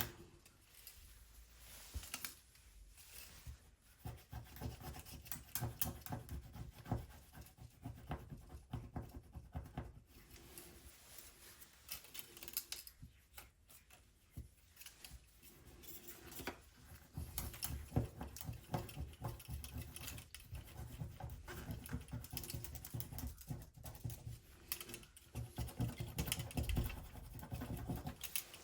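Repeated small scratching and clicking as leftover battery adhesive is scraped and picked off the inside of a smartphone's battery bay, with occasional duller knocks against the phone or bench.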